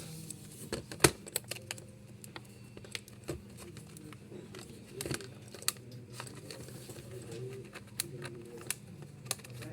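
Irregular sharp clicks and clacks of small hard parts being handled and knocked together during printer repair work, the loudest about a second in, over a faint low background murmur.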